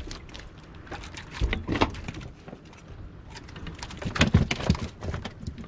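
Handling noises at a bowfishing boat's bow: a run of scattered clicks, knocks and thumps as a shot fish and arrow are dealt with on the deck. There is a burst about a second and a half in and a louder cluster a little after four seconds.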